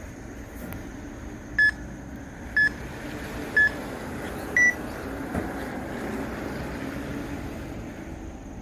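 Workout interval timer beeping a countdown: three short beeps a second apart, then a fourth, higher beep, marking the end of a rest period.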